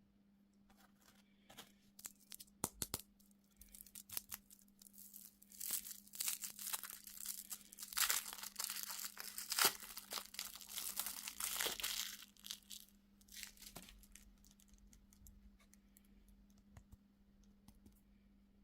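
Plastic candy or dessert wrapper being crinkled and torn open, in scattered crackles at first, then dense crinkling for several seconds in the middle before it dies down to a few crackles. A steady low electrical hum runs underneath.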